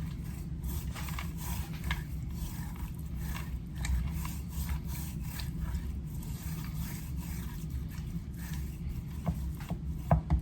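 Hands sprinkling and rubbing seasoning into a rack of raw pork ribs: soft scattered scrapes and rubs over a steady low hum.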